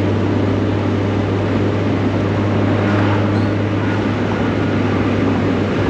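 1999 Mazda Miata's four-cylinder engine running at a steady speed while driving, with a constant low hum and road noise, heard from inside the car.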